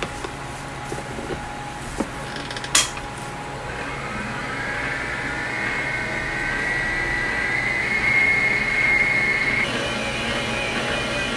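Stand mixer running, its balloon whisk beating waffle batter in a stainless steel bowl: a sharp metallic clack about three seconds in, then a motor whine that climbs slowly in pitch and loudness and steps up higher near the end.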